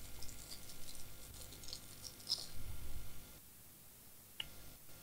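Faint clicks and light rustling from small parts and tools being handled on a workbench. They die down about three and a half seconds in, with one more sharp click near the end.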